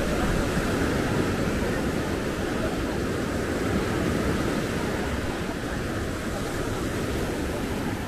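Steady outdoor noise of surf and traffic blended together, with no single event standing out.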